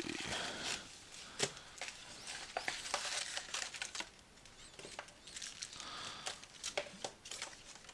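Crinkling and rustling of trading-card pack wrappers, with small irregular crackles and clicks, as the packs are handled and taken out of the box.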